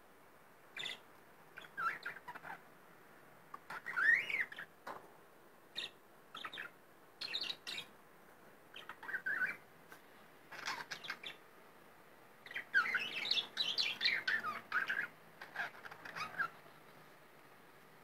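Budgerigar chirping and chattering in short, irregular bursts, with a busier stretch of continuous chatter in the second half that stops shortly before the end.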